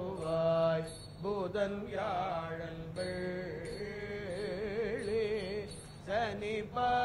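Priests chanting a slow Tamil devotional hymn, with long held notes that waver in pitch.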